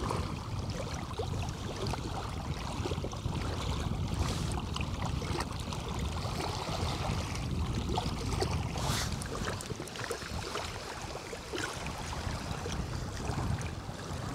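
Wind noise on the microphone, a steady low rumble, with small waves lapping at the reservoir shore.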